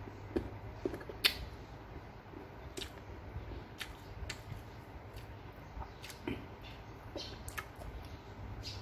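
Close-up eating sounds: a toothpick picking at fruit on a plate and chewing, heard as scattered short clicks and crunches, the sharpest about a second in. A steady low hum runs underneath.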